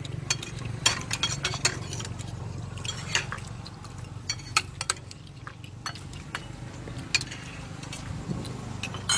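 Metal spoon clinking and scraping against a plate while it stirs and scoops a fish salad of long beans and greens, in irregular taps. A steady low hum runs underneath.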